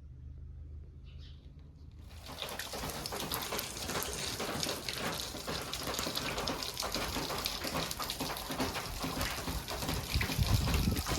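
Rushing water, a steady crackling wash that comes in suddenly about two seconds in and grows a little louder toward the end.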